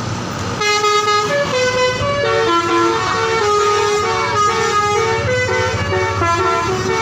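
Bus telolet 'basuri' multi-tone horn playing a tune, its notes stepping up and down one after another, over a low engine rumble.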